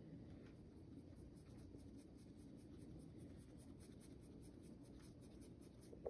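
Faint, repeated scratchy strokes of a flat paintbrush dragging paint across a canvas sheet.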